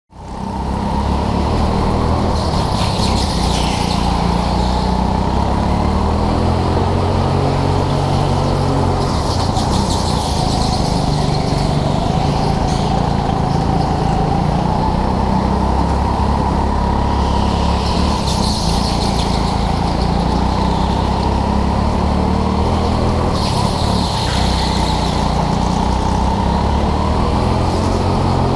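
Go-kart engine running hard on a lap, its pitch rising and falling as the kart speeds up and slows for corners. Tyres squeal several times through the turns.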